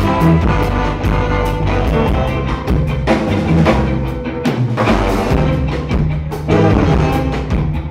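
Live ska band playing an instrumental passage between sung lines: a steady bass line and drum kit under sustained melodic instruments.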